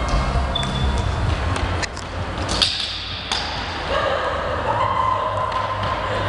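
Footsteps on a wooden gym floor and the knocks and metallic clicks of fire hoses and their couplings being handled, echoing in a large hall.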